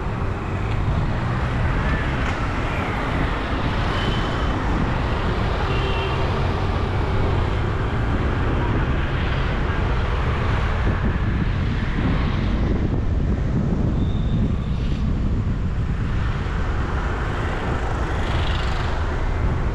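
Steady road and traffic noise from a vehicle moving along a busy city street, with a low rumble throughout and a few brief high beeps.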